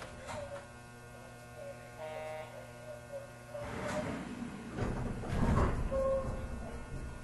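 Inside a JR West 213-series electric train car standing at a station: the car's equipment gives a steady electrical hum, with faint chime tones in the background. From about four to six seconds in, a louder rush of noise with low thumps rises and fades.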